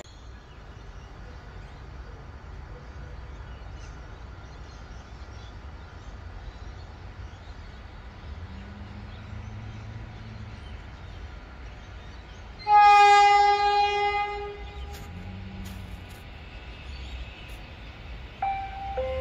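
An approaching electric passenger train sounds one long, loud horn blast of about two seconds, about two-thirds of the way through, over low background rail noise. Near the end there is a short falling two-note tone.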